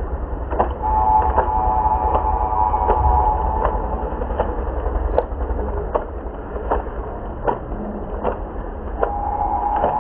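Spoon clinking against a small steel bowl of beaten egg in steady strokes, about one every three-quarters of a second, over a steady low rumble.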